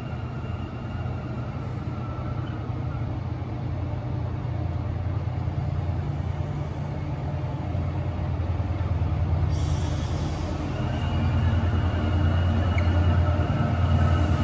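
A TransPennine Express passenger train rolls slowly into the station. It makes a steady low running hum with a faint higher whine, growing louder as it draws closer.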